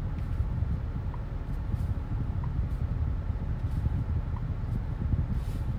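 Steady low rumble of a 2022 BMW X3 M Competition driving at an even pace, with no revving or gear changes.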